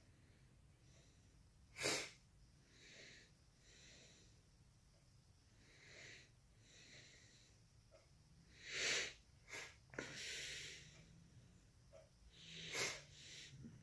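A man breathing close to the microphone: a series of soft breaths and exhales, louder around the middle and again near the end, with a short sharp noise about two seconds in.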